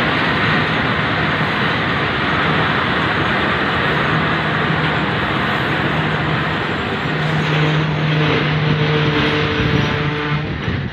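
Passenger train running hard, its wheels on the rails and the rushing wind loud through an open carriage window, while the brakes are being applied. A steady low tone rises out of the noise and is loudest from about seven seconds in.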